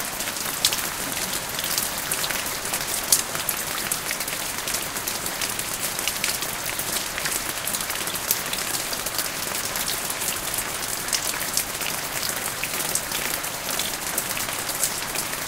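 Steady rain falling on a hard surface, a dense hiss with many sharp individual drop ticks.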